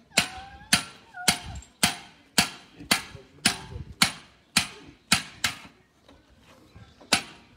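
Hand hammer striking the outside of a copper pot, about two blows a second, each a sharp metallic clank with a short ring. The blows stop for about a second and a half near the end, then start again.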